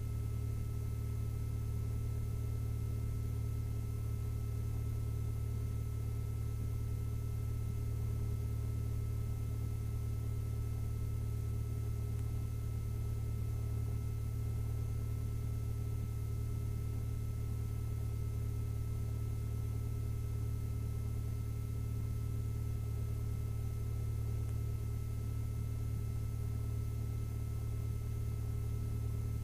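1967 Mooney M-20F's Lycoming IO-360 four-cylinder engine idling steadily in the cockpit during its cold-start warm-up, the oil still below 120 degrees.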